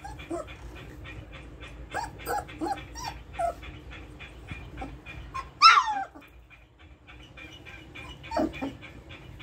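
Three-week-old golden retriever puppies whimpering and yipping. A run of short, falling whines comes about two seconds in, the loudest, highest yelp just before six seconds, and two more short whines near the end.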